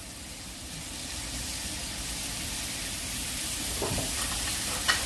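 Slices of beef sizzling as they grill on a hot surface: a steady frying hiss that slowly grows louder, with a couple of light taps near the end.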